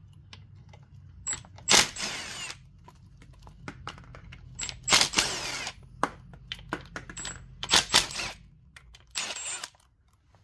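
A cordless power tool run in four short bursts, backing out the T40 bolts of a transmission pan, with light metal clinks between the bursts.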